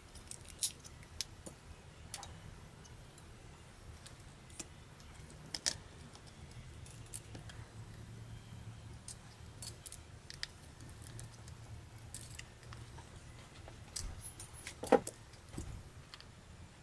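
Scattered small clicks, taps and light rattles of a compact camera's plastic and metal body parts being handled and pried apart with a small screwdriver, the loudest a sharp click about 15 seconds in. A faint low hum sits underneath.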